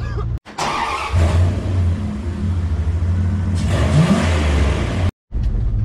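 Off-road vehicle engine revving and running hard, with a short rise in pitch about four seconds in. The sound drops out abruptly near the start and again near the end.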